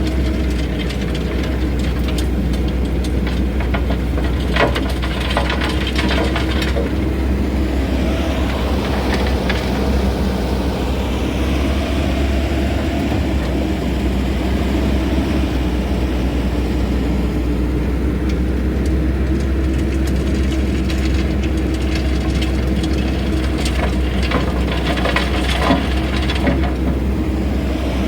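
Excavator engine and hydraulics running steadily at work while driving a screening bucket, with scattered sharp knocks about five seconds in and again near the end.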